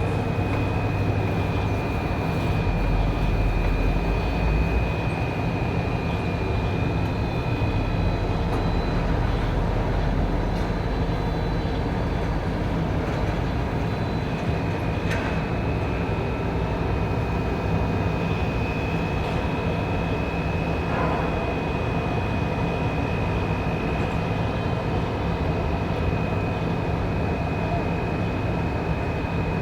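Container-loading machinery at a port: a steady low drone with a continuous high whine that drops out about eight seconds in and comes back about fourteen seconds in, and a single sharp knock about fifteen seconds in.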